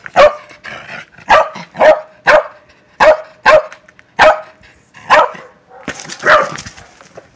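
Welsh corgi barking in about nine short, sharp, loud barks, each half a second to a second apart: excited barking at play, ready for the ball.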